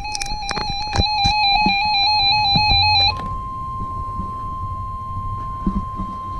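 An electronic warbling alert tone with scattered clicks. About three seconds in it switches abruptly to a single steady tone: the NOAA Weather Radio 1050 Hz warning alarm tone, which signals that a warning message follows.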